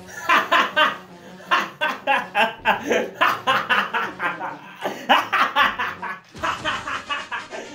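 A man laughing hard and long, a rapid string of 'ha' pulses broken by a few short pauses for breath.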